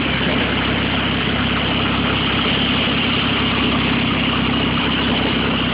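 A vehicle's engine running steadily as it drives through deep floodwater, with water rushing and splashing along its side.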